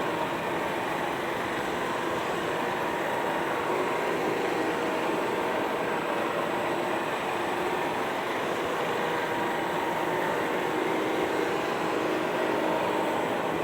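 CHUWI ILIFE V7S robot vacuum cleaner running: a steady motor hum with a faint high whine.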